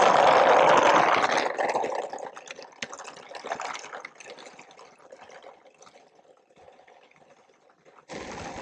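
A child's bicycle and a small plastic toy trailer rolling over a rough gravelly path, making a rattling, crunching noise that fades away over several seconds as they move off. A different steady background sound starts abruptly near the end.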